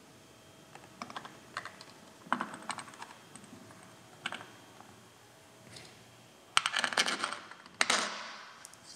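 Light clicks and taps of plastic and metal control parts being handled and fitted onto an RS800 CVT transaxle, with louder bursts of clatter about two-thirds of the way through.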